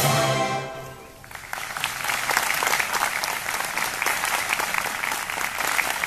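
An orchestra's final held chord dies away over about a second, then a large audience breaks into applause that carries on steadily.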